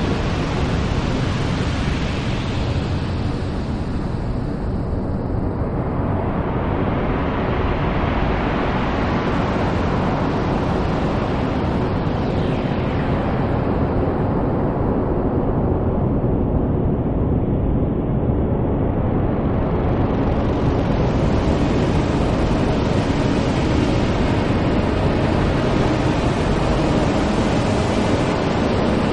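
Experimental noise music: a dense, steady wash of noise, heaviest in the low end. Its high end dulls through the middle and brightens again about two-thirds of the way through.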